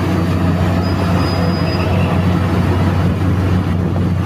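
Heavy mining machinery, a large hydraulic excavator and dump trucks, running steadily with a deep engine hum. A thin, high metallic squeal comes about a second in and lasts about a second.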